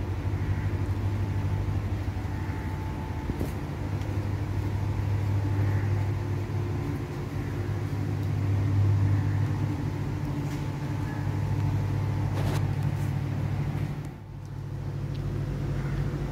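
Steady low mechanical hum of a miniature fire-tube boiler model's motors and forced-draft blower running, with a few faint knocks along the way.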